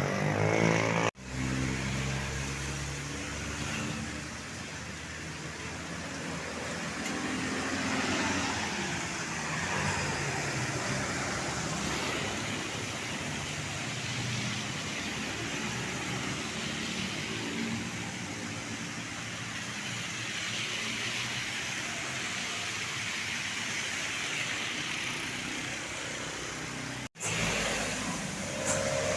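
Road traffic: vehicles passing with engine and tyre noise, the engine sound rising and falling. The sound drops out abruptly about a second in and again near the end.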